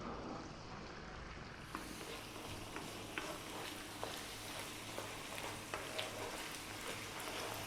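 Orecchiette in tomato sauce sizzling steadily in a pan over high heat, with scattered sharp clicks as it is stirred.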